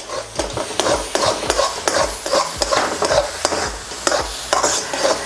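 A spatula stirring and scraping thick papaya halwa around a metal kadhai in quick, repeated strokes, with the ghee sizzling underneath. The halwa is cooked down and no longer sticks to the pan, because the ghee has fully blended in.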